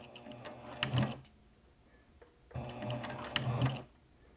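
Juki TL2010Q sewing machine stitching slowly in short bursts, stopping and starting twice, as it topstitches with heavy Tex 69 thread through many layers of leather, lining, interfacing and foam.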